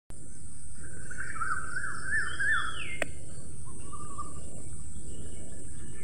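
Woodland birds singing: several phrases of quick rising-and-falling notes and a short falling whistle, over a steady high hiss and a constant low rushing background. A single sharp click about three seconds in.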